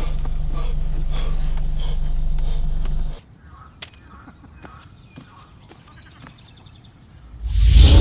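Pickup truck engine running steadily, heard from inside the cab, a low drone that cuts off about three seconds in. Near the end a loud rushing noise swells up suddenly.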